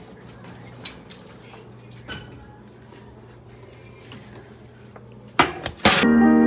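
An oven door opening and a metal loaf pan being handled on the wire oven rack with an oven mitt: a few light metal clicks, then two loud clattering knocks close together near the end. Music starts just before the end.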